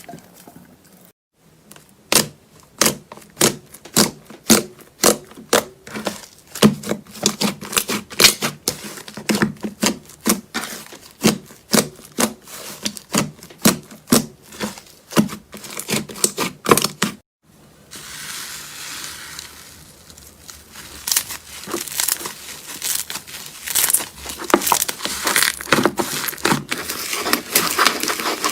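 Slime being played with by hand: a steady run of sharp pops and clicks, about two a second, as it is pressed and stretched. After a short break, a denser, irregular crackling.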